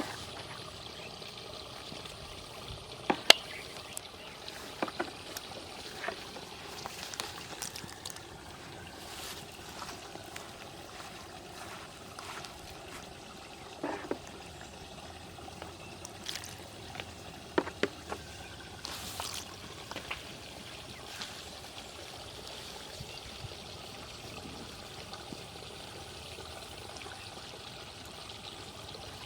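Water trickling and flowing steadily, with scattered sharp clicks and small splashes, the loudest about three seconds in.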